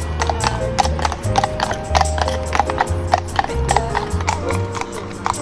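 Shod hooves of two horses walking on an asphalt road, a steady, overlapping clip-clop of sharp, clear strikes. Background music with held notes and bass plays underneath.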